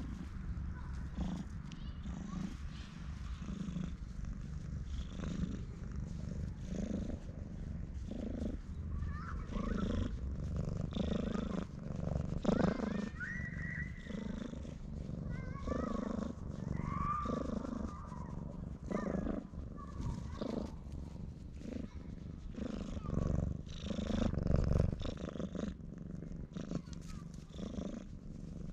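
Tabby stray cat purring loudly and steadily while being stroked. A few short higher-pitched chirps come through around the middle.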